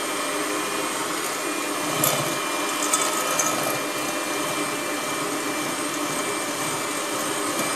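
Electric hand mixer running steadily, beating eggs with sugar and milk in a bowl.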